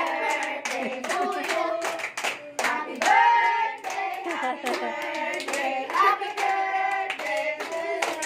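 A small group of people singing and clapping along in time, the claps coming about two or three a second under the voices.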